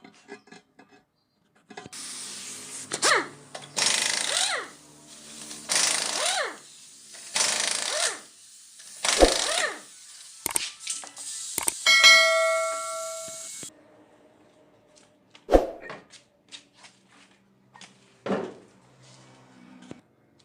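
A power tool run in about six short bursts, each rising and falling in pitch, then a steady whine for a second or two, followed by a few sharp knocks.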